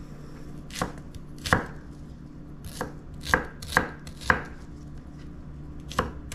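Chef's knife chopping an onion on an end-grain wooden cutting board: about seven sharp knife strikes at uneven intervals.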